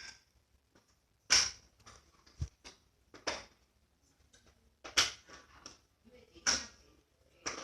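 Slime being handled, giving six sharp pops or snaps spaced one to one and a half seconds apart, with soft squishing between them.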